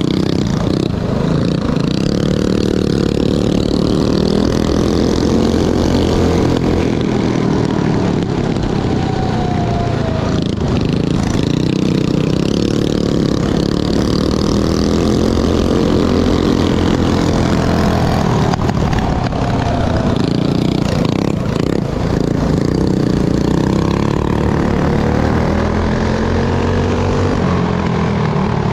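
Predator 212cc single-cylinder mini bike engine running hard under racing load, its pitch rising and falling again and again as the throttle is opened and backed off.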